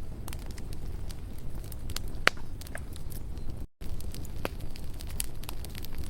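Campfire burning: a steady low rush of flames with scattered sharp crackles and pops of the wood, one louder pop about two seconds in. The sound cuts out for a split second just past halfway.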